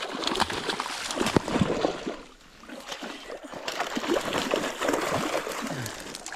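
Water splashing and sloshing in irregular bursts, easing off about two seconds in before picking up again.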